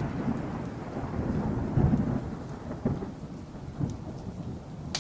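Thunderstorm: rain falling with rumbling thunder that swells about two seconds in, and a sharp crack near the end.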